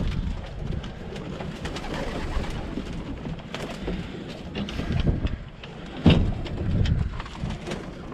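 Pigeons cooing in a loft, among many short clicks and shuffling sounds from the flock, with a sudden loud thump about six seconds in.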